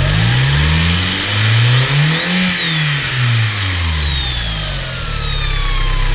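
Audi 1.8 turbo engine revved once, climbing for about two seconds and falling back to idle. A high turbo whine rises with the revs, then slowly winds down after the throttle closes.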